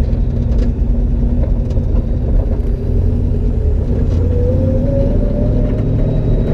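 Cammed Ford 5.0 V8 of a 1991 Mustang LX drag car running at low speed. The exhaust is open, with bullet mufflers dumped behind the doors, and it is heard loud from inside the cabin with a deep rumble. The revs rise a little about four seconds in.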